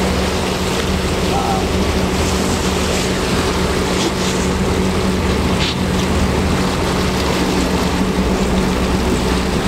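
Sportfishing boat's engine running steadily under way, a constant low drone with a steady hum, over the rush of water churned up at the stern.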